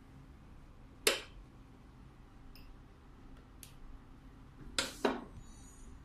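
Schmidt Manual Press 300 worked by its hand lever, giving sharp metallic clicks: one loud click about a second in, a couple of faint ticks, then two clicks in quick succession near the end.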